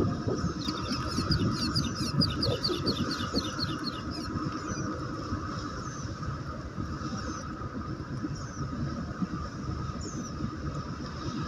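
A bird trills a fast run of high chirps for about three seconds near the start, then gives single chirps every second or two. Under it runs a steady low rumble with a faint constant hum.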